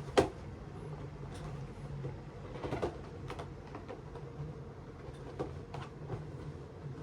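Hard plastic parts of a Beyblade X stadium clicking and knocking as they are handled and snapped together: scattered sharp clicks, the loudest just after the start, over a faint steady hum.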